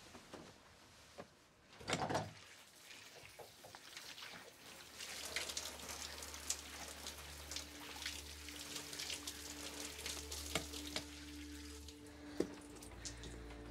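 Water from a shower spraying and splashing, starting about five seconds in, after a brief loud knock about two seconds in. Low sustained music tones come in behind the water and hold through the rest.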